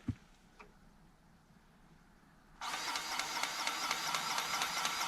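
Electric grease gun starting about two and a half seconds in and running steadily with a fast, even ticking of its pump, forcing grease into the excavator's track adjuster to push the front idler out and tighten the loose rubber track.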